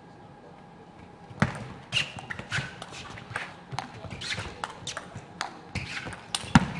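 A table tennis rally: after a quiet moment, the ball starts being struck about one and a half seconds in. The sharp clicks of the ball on the rackets and bouncing on the table then follow in a quick, uneven run, roughly two a second.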